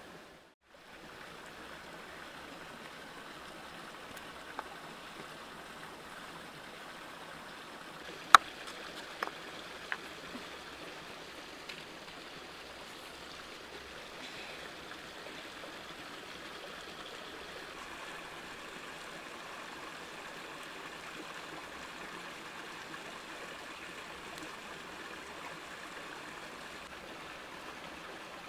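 Steady rushing of a rocky stream, with a few sharp knocks between about four and twelve seconds in, the loudest about eight seconds in. The sound drops out briefly just after the start.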